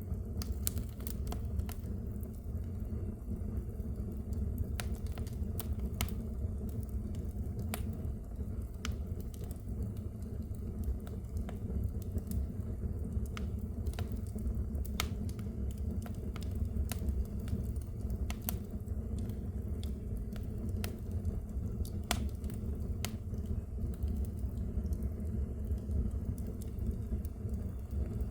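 Fire in a fireplace crackling: a steady low rumble of flames with sharp pops and snaps scattered irregularly through it.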